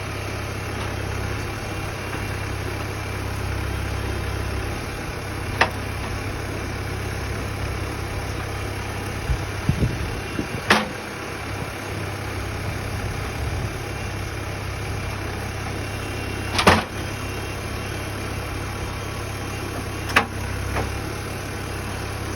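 Sawmill engine running steadily, with a handful of sharp knocks as a pine cant is turned over on the mill; the loudest knock comes about three-quarters of the way through.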